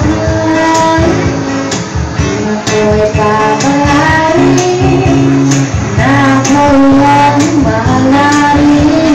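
Live bossa nova played on acoustic guitar through a PA, with light percussion strokes keeping a steady beat.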